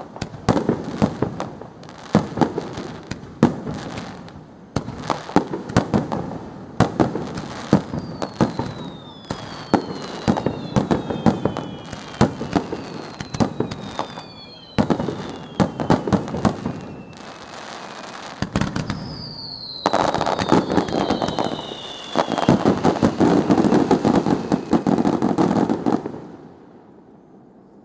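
Aerial fireworks display with a steady string of sharp bangs, some shells trailing whistles that fall in pitch. About twenty seconds in, it builds to a dense, rapid barrage of bangs and crackle that stops abruptly near the end.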